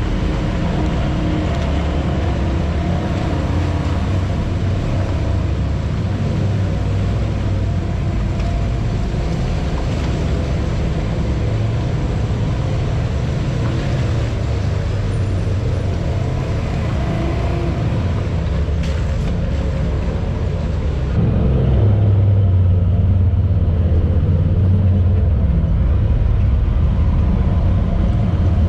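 Side-by-side UTV engine running steadily as it drives along. About 21 seconds in, the sound becomes louder and duller, heard from inside the cab.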